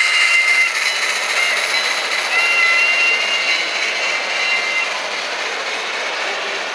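Steam-locomotive whistle from the sound decoder of a Bachmann N-scale K4 with DCC sound, a two-note tone that ends about half a second in and blows again for about two and a half seconds from around two seconds in. It sounds over a steady rushing noise.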